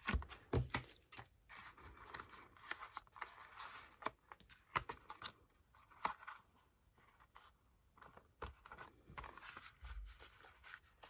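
Cardstock being folded and handled on a table: scattered rustles and crinkles, with a few soft knocks near the start and again near the end.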